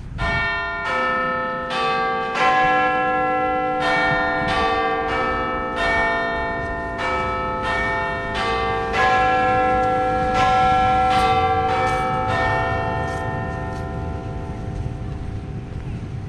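Bells struck one note at a time in a slow, uneven melody, each note ringing on and overlapping the next. The strikes stop about three-quarters of the way through and the ringing fades out.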